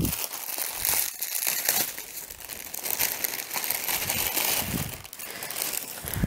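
Clear plastic packaging bag crinkling and rustling in the hands as a faux leather camera case is unwrapped, irregular crackles that ease off near the end.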